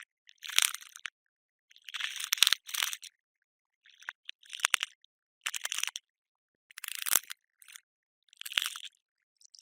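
Cockroach sounds: short, dry scratching and crackling bursts, roughly one a second, with silence between them.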